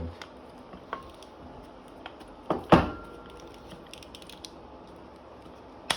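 Nylon lockjaw-style quick-release barbell collar being closed on a bar: a few light clicks, then a sharp double snap as the lever is pressed shut, and another click near the end. The lever is a little tough to close, probably because it is brand new.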